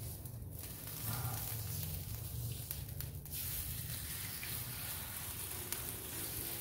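Chicken thighs sizzling steadily on a hot flat-top griddle.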